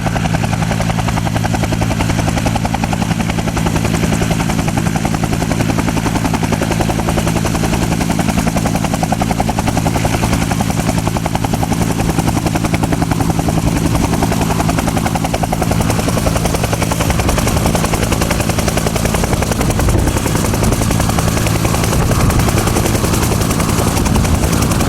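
Bell UH-1 Huey helicopter running, its turbine engine and main rotor going continuously with a rapid, even beat of the blades. About two-thirds of the way in, the low part of the sound turns rougher and less steady.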